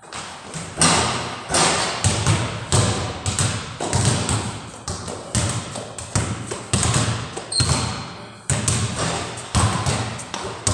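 Basketballs bouncing on a hard floor in a run of thumps, about one to two a second, each one echoing around a large bare room with block walls.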